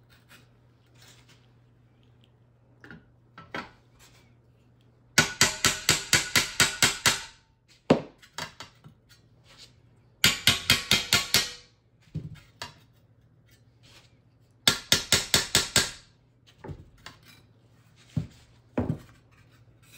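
Round-tipped chisel struck with a hammer against a metal cockpit capping piece on an anvil, planishing out dents in its edge. The blows come in three quick runs of about ten light strikes each, roughly five a second, with a few single taps between the runs.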